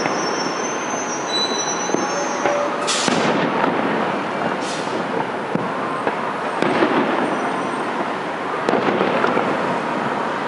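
Fireworks display: a dense, continuous barrage of bangs and crackling, with faint whistles in the first two seconds and two sharp hissing bursts about three and five seconds in.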